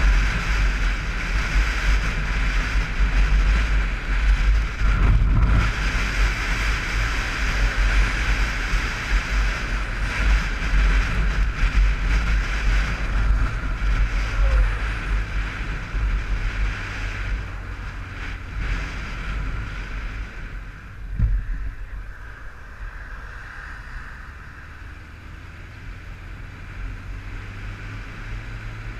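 Wind buffeting a helmet-mounted camera's microphone on a Honda motorcycle at road speed, with the engine and tyres running underneath. The rush eases off about two-thirds of the way through as the bike slows, with a brief thump around then.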